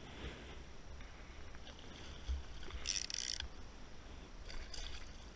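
Water lapping and splashing around a small aluminium boat while a hooked yellowfin tuna is fought at the surface, with a low wind rumble and a short splash about three seconds in.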